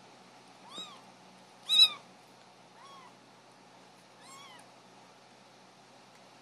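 Bottle-fed kittens mewing as they compete for the feeding bottle: four short, high-pitched mews, each rising and then falling in pitch, the second one by far the loudest.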